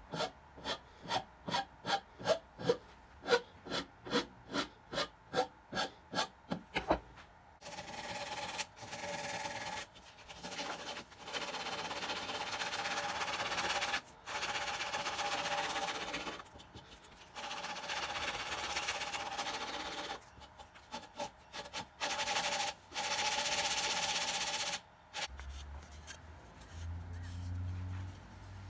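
Wooden handle of a vintage Disston handsaw being worked with a rasp in quick, even strokes, about three a second, for the first seven seconds. Then come long steady stretches of sanding with abrasive, broken by short pauses, and it turns quieter near the end.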